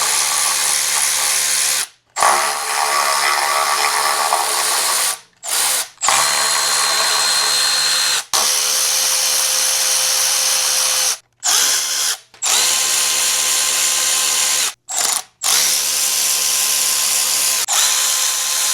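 Power drill-driver spinning a socket to back out the half-inch bolts holding the front timing cover on a Ford 300 inline-six. It runs in about seven steady whirring bursts of one to five seconds each, with brief stops between bolts.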